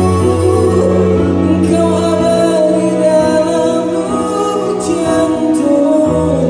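Live ballad: a man singing into a microphone, accompanied on a Yamaha stage keyboard with sustained chords. The low bass notes drop out about two seconds in and come back near the end.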